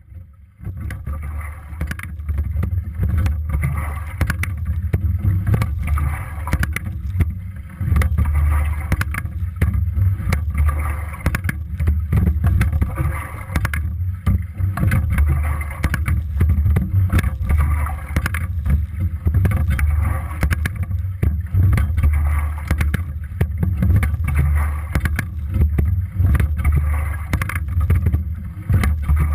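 A Sykes single scull under way with oars, heard from a GoPro mounted on the rigger: a heavy, steady low rumble of water and wind on the camera, with frequent clicks and knocks from the oars and rigging.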